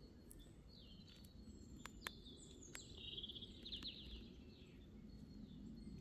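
Faint song of a small woodland bird: a high phrase that ends in a rapid trill, over a low steady background rumble. A few sharp clicks come through, the loudest about two seconds in.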